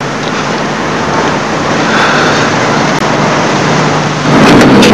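Car and street traffic noise: a steady rush that grows louder, with a low engine hum coming in about four seconds in.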